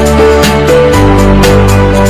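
Background music: held electronic chords over a deep bass line, with a steady percussive tick. The bass note shifts about a second in.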